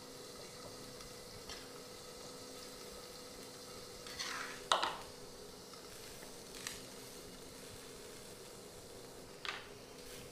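Cassava-leaf soup simmering quietly in a wok, under a steady faint hum. A few brief clicks and scrapes of stirring and handling the pan stand out, the loudest about four to five seconds in.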